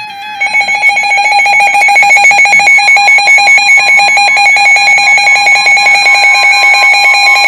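Loud electronic alert tone from a NOAA Weather Radio broadcast: a steady, fluttering alarm held for several seconds, signalling an incoming warning message.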